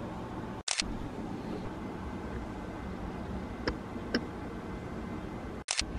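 Camera shutter clicks: one short, sharp click about a second in and another near the end, each just after a brief cut-out of the sound, over steady background noise, with two faint ticks in between.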